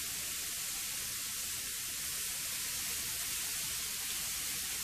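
Shrimp sizzling on a hot electric griddle with a steady hiss as teriyaki sauce is poured over them.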